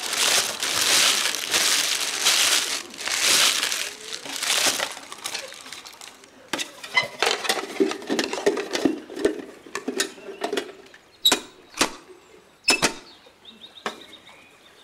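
Food wrapping crinkling loudly in repeated bursts for about five seconds. Then a plastic food box is handled, with softer rubbing and several sharp plastic clicks and snaps of its lid.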